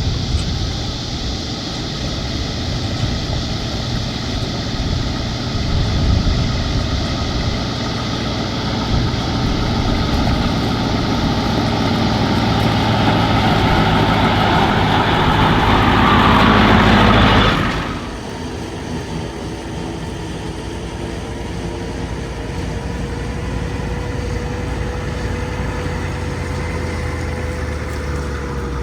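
Kubota M7-172 tractor and pull-type New Holland FP230 forage harvester running while chopping corn: engine and chopper noise that grows steadily louder, then drops suddenly about two-thirds of the way through to a quieter, steady engine sound with a thin steady whine.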